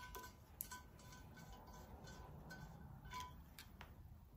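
Near silence: faint background music, with a few light clicks as an exhaust gasket is lifted off a cast-iron cylinder head.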